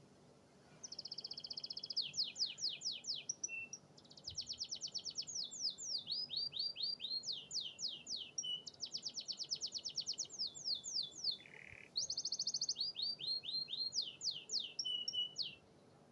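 Domestic canary singing a long, fast song of rapid trills and series of quick downward-sweeping notes, starting about a second in and stopping shortly before the end.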